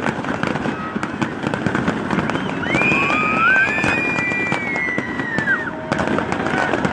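Fireworks finale: rapid, dense crackling and popping bangs throughout. A long high whistle sounds from about three to five and a half seconds in.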